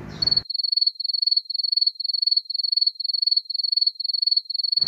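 Cricket chirping sound effect dubbed in over muted audio: one high, even chirp repeating about three times a second, with no room sound beneath it.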